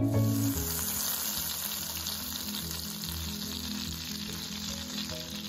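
Butter melting and bubbling in a stainless steel pan over medium heat, a steady frying sizzle, with quiet background music underneath.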